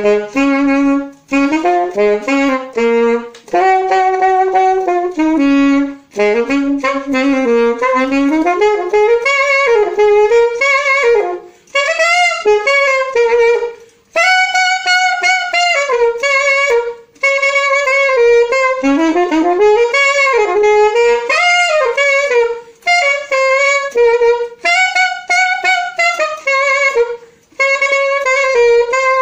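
Solo saxophone playing a jazzy phrase with the tongue engaged, each note articulated with soft legato tonguing. The line runs in short phrases broken by brief gaps every few seconds, with slides between notes, and ends on a held note with vibrato.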